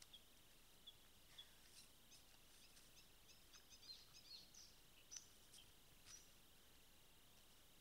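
Near silence through a trail camera's microphone: a steady faint hiss with a few scattered soft ticks, and a short run of high, quick chirps about three seconds in.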